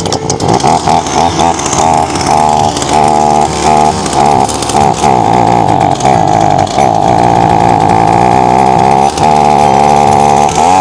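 Two-stroke chainsaw engine running at high revs after being cleared of flooding. It stutters on and off for the first couple of seconds, then holds a steadier high whine.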